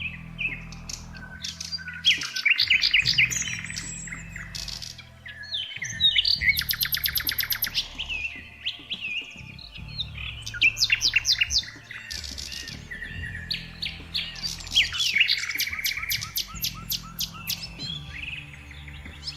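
Several songbirds chirping and calling over one another, with rapid buzzy trills, over a low, sustained background music pad.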